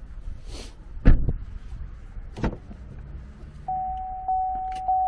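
A car door shut with a thud about a second in, then a sharper click of a door latch, then the Holden Commodore's warning chime starting to ding steadily, about every half second, with the driver's door open.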